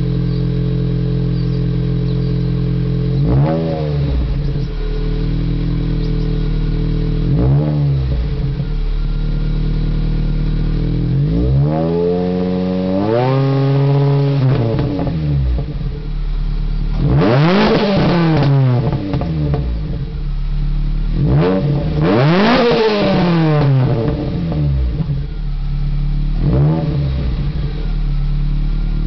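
Supercharged 2002 Ford SVT Focus 2.0-litre four-cylinder with a Jackson Racing supercharger, exhaling through an off-road pipe in place of the catalytic converter, a Borla 2.5-inch muffler and a Magnaflow resonator. It idles steadily and is revved about seven times, each rev rising and dropping back to idle. The longest rev comes about halfway and the two highest come in the second half.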